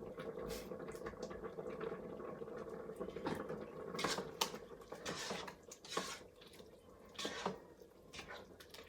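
Coconut curry sauce bubbling on sauté in an electric multi-cooker pot, with scattered pops and plops over a low steady background that fades about halfway through.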